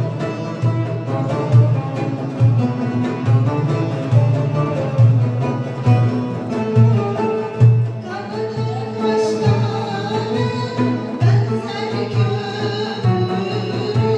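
Live Turkish folk music: a woman singing with bağlama, guitar, frame drum (def) and darbuka, the drums keeping a steady beat of about two strokes a second. The voice comes to the fore about halfway through.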